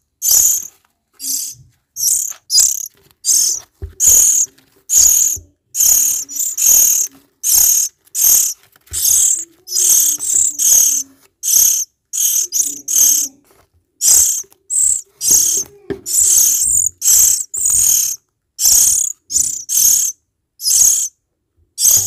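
Myna nestlings giving rasping begging calls, short harsh bursts repeated about once or twice a second: hungry chicks gaping and calling for food.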